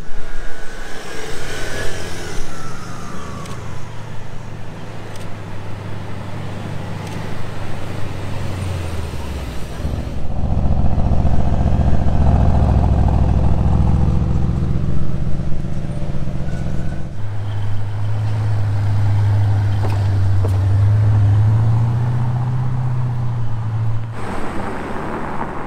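A Mercedes-AMG C63 S and other cars driving past slowly, engines running at low revs. About ten seconds in the engine sound grows louder for several seconds as a car passes close, then settles to a steady low hum that rises a little in pitch near the end.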